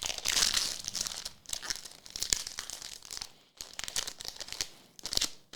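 Trading card pack wrapper being torn and crinkled in the hands, in a string of irregular crackles with short pauses, as the next pack is opened.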